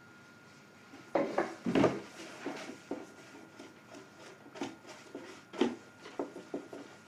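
Handling noises from a tin can, a brush and a plastic tray: two firmer knocks, then a scatter of light taps and rubbing, with one sharper knock near the end.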